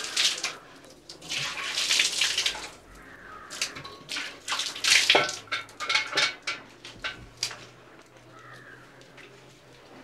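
Water being poured and splashed in irregular bursts, the longest about a second and a half and four and a half seconds in, with metal pots and dishes clinking and clattering in a kitchen.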